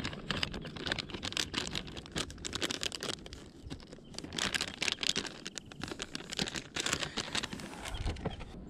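Plastic soft-bait bag crinkling and crackling in the hands, with irregular rustles as a soft-plastic trailer is pulled out of it.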